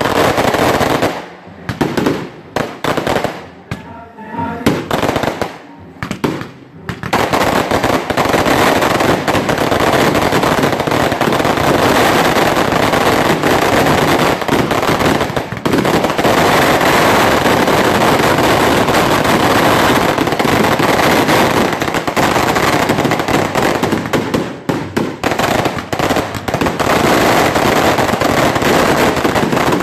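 Fireworks going off in a rapid barrage of firecracker bangs: a few separate blasts at first, then from about seven seconds in an unbroken, dense crackle of explosions that thins briefly near the end.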